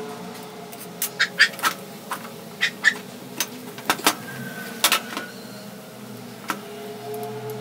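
A dozen or so sharp metallic clicks and taps, some with a brief ring, as a hand tool works a bolt or pin on an old circular saw's aluminium housing during disassembly. They come in an irregular run over the first few seconds, with one more click later, over a faint steady background tone.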